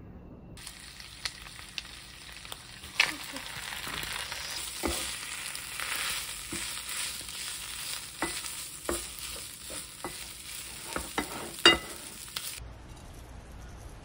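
Leftover spicy stir-fried pork and rice sizzling in a frying pan while being stirred and scraped with a wooden spatula, with sharp knocks of the spatula against the pan, the loudest about three seconds in and near the end. The sizzle cuts off suddenly shortly before the end.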